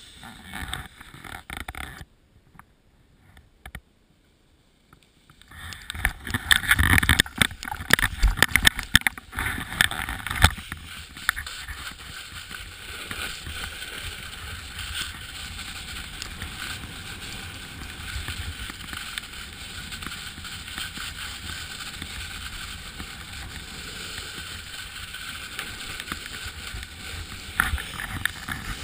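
Wind rushing over a GoPro camera and a board sliding and scraping on snow as the rider goes downhill. It is nearly silent for a few seconds, then gusty and loud from about six to ten seconds in, then a steady rush.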